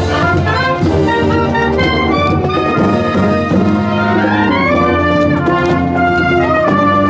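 High school brass band playing a parade march, brass in full sound over a steady beat, with a rising run of notes about four seconds in.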